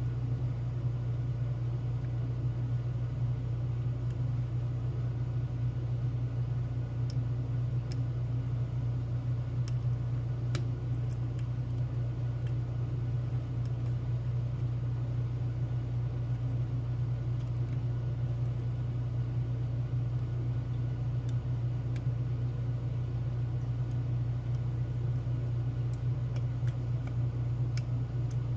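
A steady low hum throughout, with faint, irregular small metallic clicks of lock picks working the pins of a Mul-T-Lock Classic cylinder.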